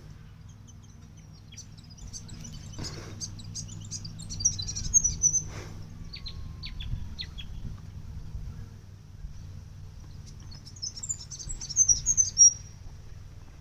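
Small birds chirping: two bursts of rapid high chirps, about four seconds in and again near the end, with scattered single chirps between them, over a steady low hum.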